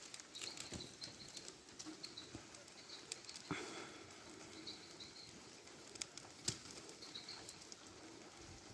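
Bonfire of partly wet firewood crackling faintly, with scattered sharp pops, a few of them louder about six seconds in. Birds chirp in short bursts in the background.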